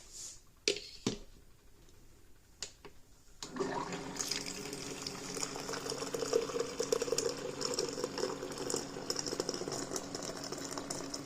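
A few light knocks, then from about three and a half seconds in, water pouring steadily into a glass French press carafe onto ground coffee.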